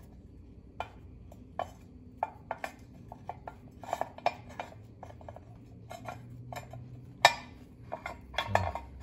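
Threaded upper control arm bushings being screwed by hand onto a C10's control arm shaft: irregular light metal clicks and clinks, with a sharper clink about seven seconds in.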